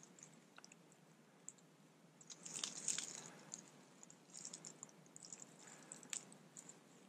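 Faint crackling and rustling of dry leaves and pine straw underfoot as a hunter creeps slowly forward, with a denser patch of crunching about two and a half seconds in.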